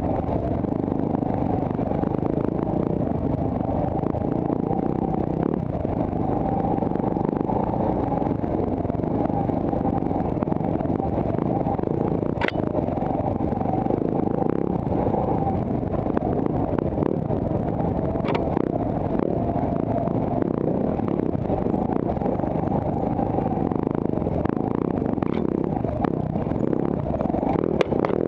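Dirt bike engine running steadily under way on rough ground, heard from on board the bike, with a few sharp clicks scattered through.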